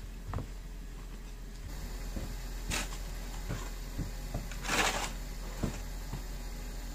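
Snow shovel scraping and scooping snow off a driveway: a few short scrapes and knocks, with one longer, louder scrape about five seconds in.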